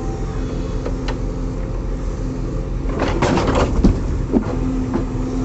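JCB backhoe loader's diesel engine running steadily, with a cluster of clanks and knocks about three to four seconds in.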